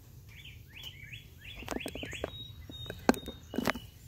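Songbirds chirping: a quick run of short down-slurred chirps, then two held whistled notes. Several sharp clicks cut in, the loudest about three seconds in.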